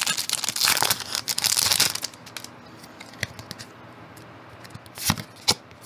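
Foil Pokémon booster pack wrapper crinkling as it is torn open, for about two seconds. Then quieter handling of the pack and cards, with a few light clicks and two sharper snaps about five seconds in.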